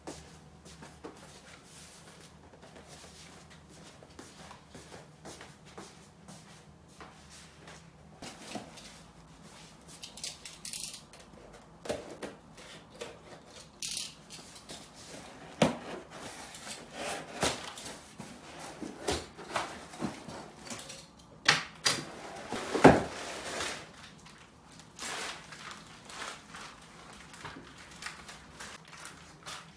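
Handling noise from unboxing a custom-made window blind: its long package knocked, shifted and rustled, with scattered clicks and taps starting about eight seconds in and the loudest knocks about two thirds of the way through, over a faint steady room hum.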